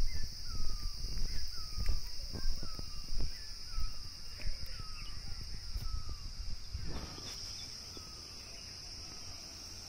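Footsteps crunching on railway track ballast at walking pace, stopping about seven seconds in. Throughout there is a steady high insect drone and a bird repeating a short falling call.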